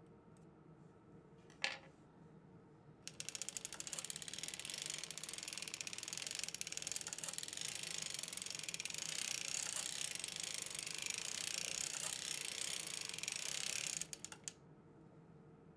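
A hand-cranked circular sock machine being turned: a rapid, even mechanical clatter of the needles working round the cylinder starts about three seconds in and stops about a second and a half before the end. It is preceded by a single sharp click.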